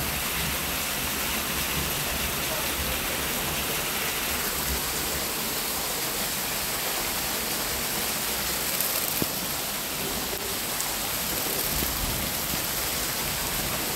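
Heavy rain pouring steadily, an even hiss of rain on the trees and the flooded street.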